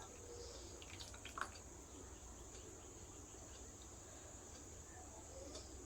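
Faint eating sounds: chewing and wet mouth clicks, with a sharper click about a second and a half in, over a steady faint hiss.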